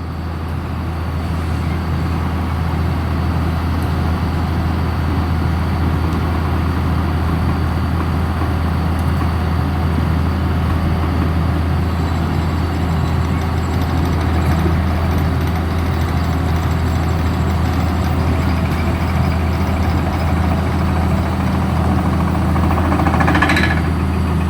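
Heavy engine of a pile-driving rig running steadily with a low, even drone, without any hammer blows. A brief higher noise rises over it near the end.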